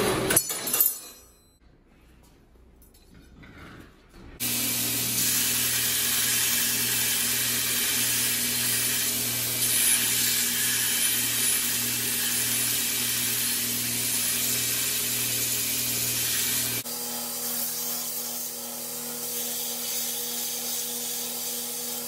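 A horizontal metal-cutting bandsaw runs and dies away in the first second or so. After a short quiet gap, a belt grinder starts abruptly and runs steadily as a steel flat bar is ground against the abrasive belt, throwing sparks. About 17 seconds in its sound shifts and drops slightly.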